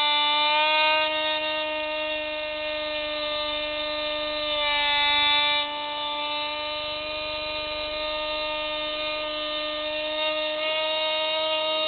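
Electric motors and propellers of an FPV aircraft, recorded on board: a steady whine with a stack of tones that shifts slightly in pitch as the throttle changes. It gets louder about four seconds in and drops back suddenly about five and a half seconds in.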